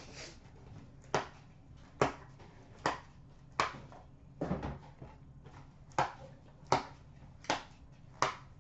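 Card boxes and packs being handled at a counter, making a run of sharp clicks and knocks about once a second, one of them a little heavier about halfway through.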